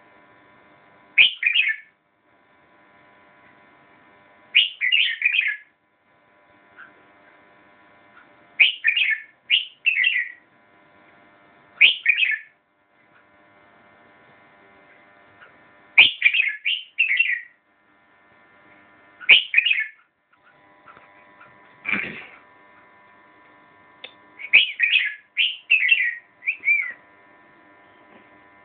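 Red-whiskered bulbul singing: about a dozen short, quick phrases of a few sweeping whistled notes, each under a second long, repeated every couple of seconds over a faint steady hum.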